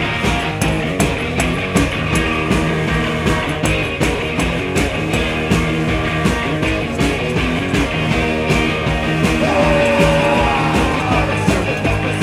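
A live garage rock band playing loud: electric guitars over a steady, fast drum beat.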